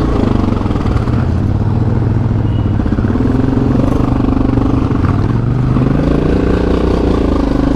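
ATV engine running under way with some rattle, the revs dropping briefly about five seconds in and then rising again.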